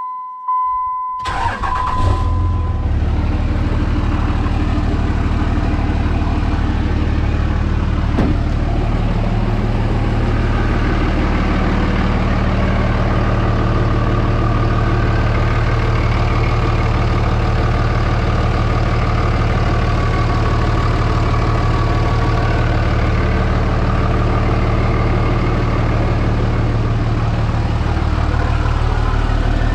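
A 2003 Dodge 2500's 5.9-litre common-rail Cummins diesel cranks and starts about a second in, then settles into a steady idle. A steady beep tone sounds just before the engine catches and stops as it starts.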